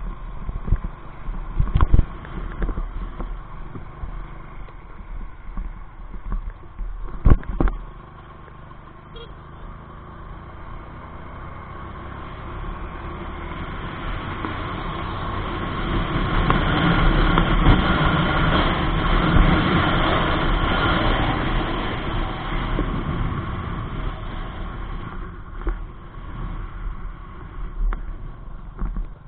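Small motorcycle being ridden, heard from a camera mounted on the bike: steady engine and road noise with wind on the microphone, swelling louder through the middle as it runs along the highway. Two sharp knocks come about two and seven seconds in.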